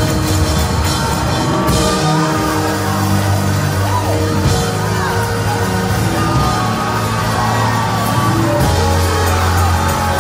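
Live gospel music played loudly by a church band over a steady bass line, with voices from the choir and congregation shouting and singing over it.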